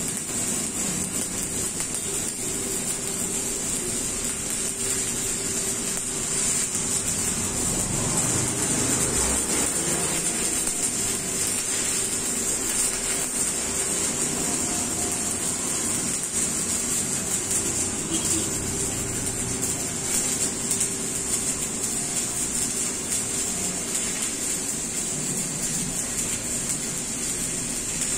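Stick (SMAW) welding arc burning on a round steel pipe joint, sizzling without a break, with a steady hum underneath.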